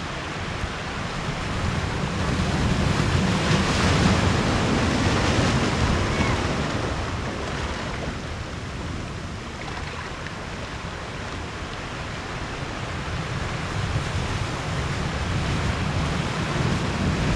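Ocean surf washing over a rocky boulder shore, swelling louder twice, with wind buffeting the microphone in a low rumble.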